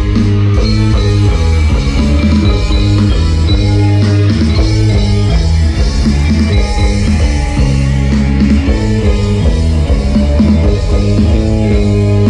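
Music played at high volume through a large street-carnival sound-system rig, with a heavy bass line.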